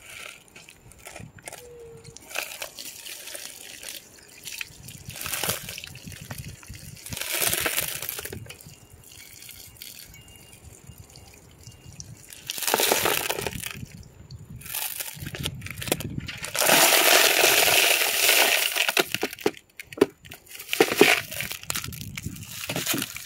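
Polished rocks and small ceramic tumbling media from a vibratory tumbler poured into a plastic colander, clattering and rattling in several short pours and one longer, louder pour about two-thirds of the way through.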